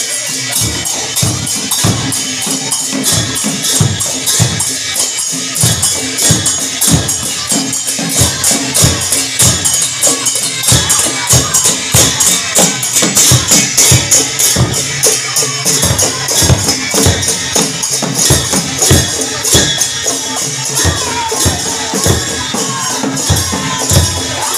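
A procession's drum, a cylindrical hand drum slung at the waist, beaten in a steady beat under continuous bright metallic jingling percussion.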